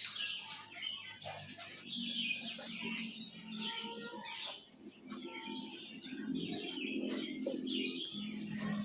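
Small birds chirping busily and repeatedly, with scattered short clicks and a low steady hum underneath.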